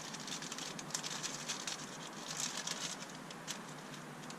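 Rapid light crinkling and clicking from hands handling piston rings and their packaging, thinning out after about three and a half seconds.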